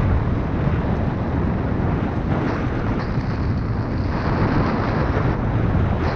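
Wind buffeting a GoPro's microphone while mountain bike tyres roll fast over a dirt and leaf-strewn trail, a steady rumbling rush with bike rattle and no engine.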